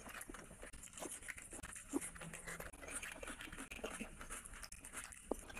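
Close-up eating by hand: fingers squishing and mixing rice and curry on a plate, with wet chewing and lip-smacking heard as a run of small clicks. Two sharper clicks stand out, about two seconds in and near the end.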